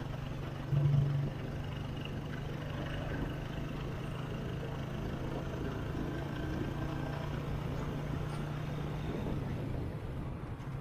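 Engine of the vehicle carrying the camera running steadily at cruising speed, a low even hum, with a brief louder surge about a second in.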